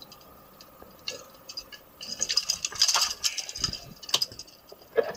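Wet clicks, clinks and rattles of a fishing lure's hooks and pliers being handled over a freshly landed fish in the bottom of a wooden boat, with a denser spell of splashy rattling about two seconds in.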